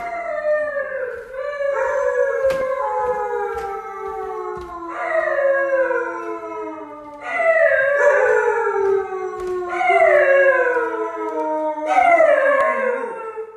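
Husky howling: about six long calls in a row, each sliding down in pitch, louder in the second half.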